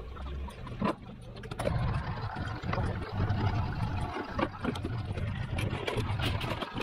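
A motorboat engine running nearby: a low, uneven rumble that swells up about a second and a half in and carries on. Light clicks of small metal parts and tools being handled sound over it.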